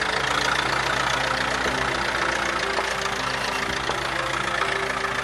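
Massey Ferguson 30 Industrial tractor's diesel engine running steadily with a clattering note, under background music.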